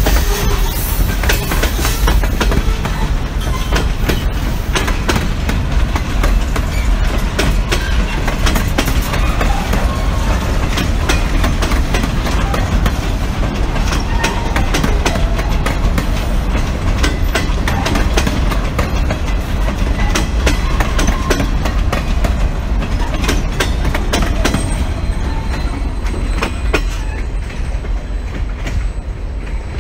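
Freight cars (covered hoppers and boxcars) rolling past on steel wheels: a steady loud rumble with rapid clickety-clack over the rail joints. Near the end the last car goes by and the high clatter fades as the train moves away.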